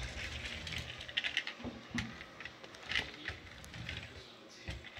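Irregular light clicks and rattles of a plastic toy car-carrier truck being handled and pushed along a table.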